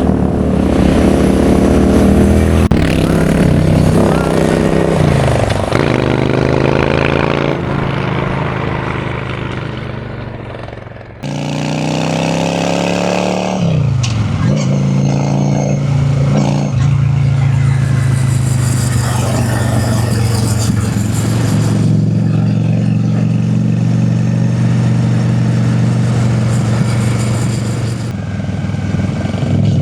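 Honda Shadow V-twin cruiser motorcycle riding, its exhaust note rising and falling with the throttle and gear changes, then holding a steady pitch while cruising.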